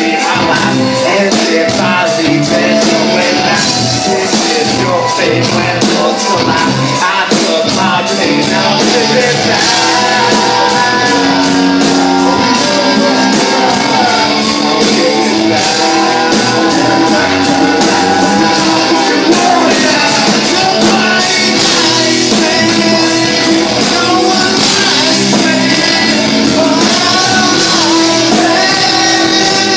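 Loud live rap-rock music: a band playing with a steady beat and a vocalist on the microphone over it.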